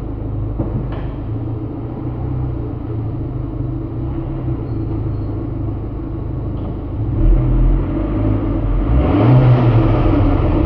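Alfa Romeo Giulietta 1.4 turbo petrol four-cylinder engine on its stock exhaust, running with a steady low rumble that grows louder about seven seconds in and swells again near the nine-second mark, as if the throttle is opened.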